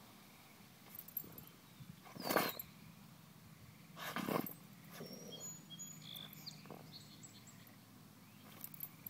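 A pit bull sniffing and huffing hard with its nose pressed into the soil of a mole tunnel, scenting the mole underground. Two strong, breathy blasts come about two and four seconds in, with fainter sniffs after.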